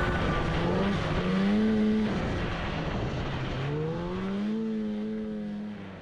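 Snowmobile engine running under throttle, its pitch rising as it speeds up about a second in and again around four seconds, then fading out near the end.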